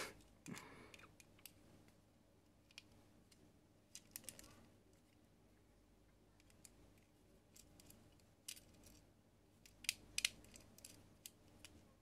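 Near silence broken by faint, scattered clicks and taps of a small screwdriver against a wall socket insert's plastic and metal parts, the loudest pair about ten seconds in.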